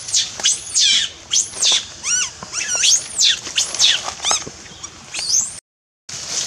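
Infant long-tailed macaque giving distress screams: a rapid series of high, shrill screams that arch up and down in pitch, some with a quick wavering pitch, with a brief dropout near the end.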